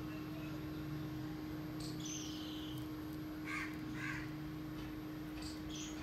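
Birds calling in short, separate squawks: a falling call about two seconds in, two harsher calls around three and a half to four seconds, and more near the end, over a steady low hum.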